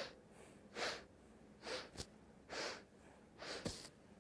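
Short, sharp sniffs in through the nose, about one a second, each taken as the head turns in a nasal-breathing exercise. A couple of soft knocks fall between them.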